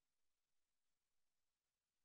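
Near silence: only faint hiss on an otherwise silent soundtrack.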